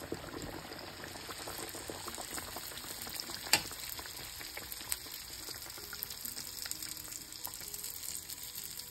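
Aloo pie, a potato-filled yeast-dough pastry, deep-frying in hot oil in a wok: steady sizzling and crackling of the bubbling oil. A sharp click stands out about three and a half seconds in, with a smaller one a second or so later.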